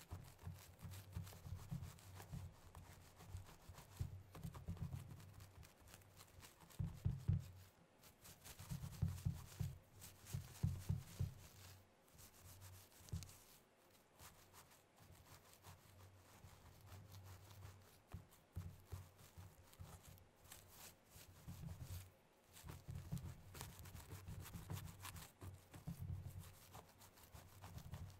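Very long pointed nails scratching and rubbing through hair in a scalp massage, close to the microphone: irregular rustling and scratching strokes with dull low thumps, busiest about seven to eleven seconds in and again near the end.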